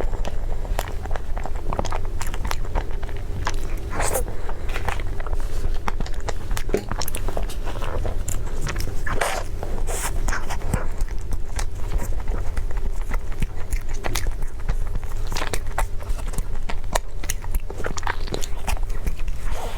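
A person eating close to the microphone: biting and chewing food, with irregular crunchy clicks and mouth sounds. A steady low hum sits underneath.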